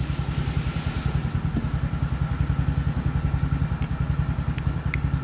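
A motorcycle engine idling with a steady, evenly pulsing low throb. A few light metallic clicks come near the end.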